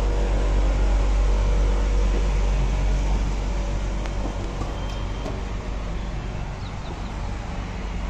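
Steady low mechanical rumble with a hum that fades out over the first few seconds, overall slowly getting quieter.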